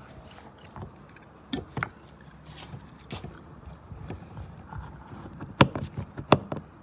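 Scattered sharp clicks and knocks of a screwdriver driving a screw into a car's plastic interior door panel, with the two loudest clicks near the end.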